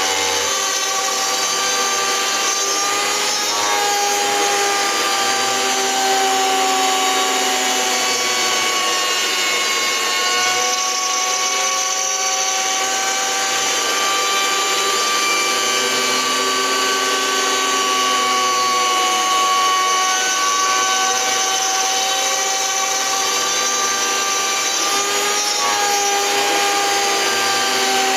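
Homemade CNC mill cutting a circular pocket in wood, its spindle a cheap mini grinder (rotary tool) running with a steady whine over the hiss of the cut. The pitch of the whine wavers slightly up and down as the cutter moves through the wood.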